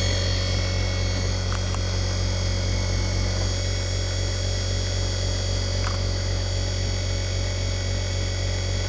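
Desktop mini leather edge burnishing machine's electric motor running with a steady hum.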